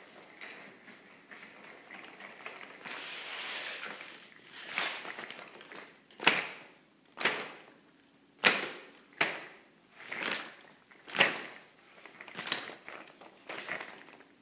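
Baby stroller wheels rolling back and forth over a cardboard banjo on a tiled floor, crushing it. From about six seconds in there is a sharp crunch roughly once a second as the wheels go over the cardboard.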